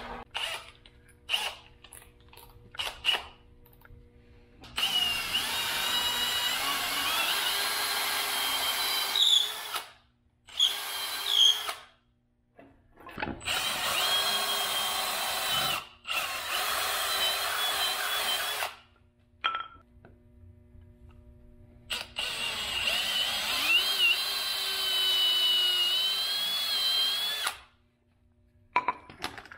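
Cordless drill boring holes into the end grain of wooden dowel handles, in four runs of about one to six seconds with a motor whine that wavers in pitch as the bit works into the wood. Before the drilling, a few clicks and knocks of tool handling.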